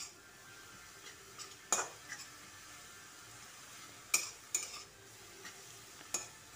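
Metal spatula scraping and clacking against a metal kadhai as chopped radish greens are stirred and pressed to release their water, a few sharp strokes spread out one to two seconds apart over a faint sizzle.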